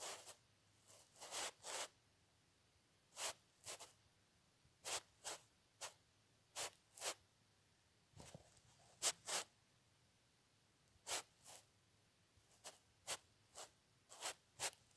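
Pen strokes scratching on paper: short, separate swipes, irregularly spaced about a second apart.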